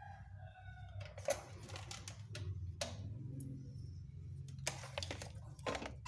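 A rooster crows once in the background at the start. This is followed by scattered sharp clicks and knocks from handling parts around the fridge compressor, over a steady low hum.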